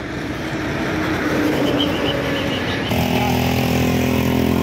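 Motorcycle engine running as it rides along, with wind and road noise that grow louder. About three seconds in the sound switches abruptly to a steady, even engine note.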